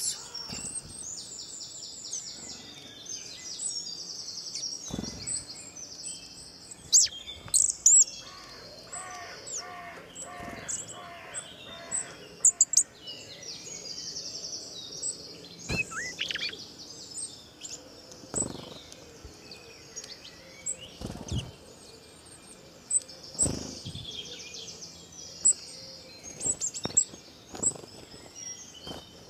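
Small birds chirping and trilling, many short calls overlapping throughout, with occasional sharp clicks standing out above them.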